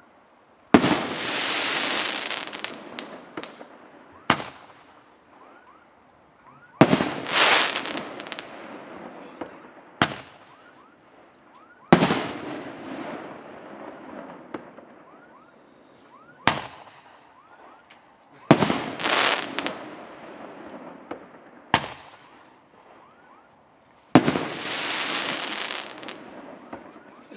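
2-inch, 8-shot Roman candle firing shot after shot: each a sharp launch thump, then about two seconds later the shell bursting overhead with a crackling hiss that fades over two or three seconds. Five bursts come about every five to six seconds, the first about a second in.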